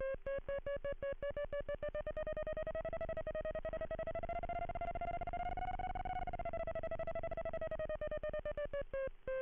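Audio variometer tone from an RC glider: rapid electronic beeps that rise in pitch and come faster, peaking about six seconds in, then ease back down. The beeping signals the glider climbing in a thermal.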